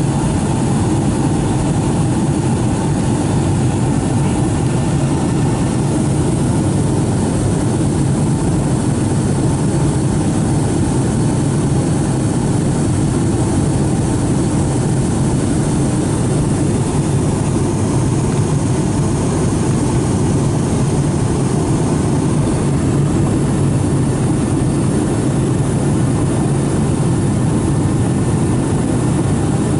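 Boeing 757-200 cabin noise in flight: a steady, unchanging jet-engine and airflow rumble.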